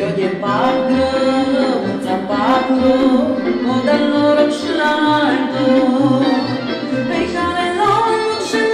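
A woman singing a Romanian folk song with melodic ornaments and glides, over instrumental backing with a pulsing bass line.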